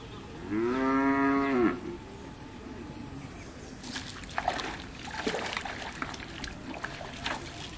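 A cow lowing: one moo about a second long, held at a fairly even pitch that dips slightly at the end. Scattered light clicks and rustles follow in the second half.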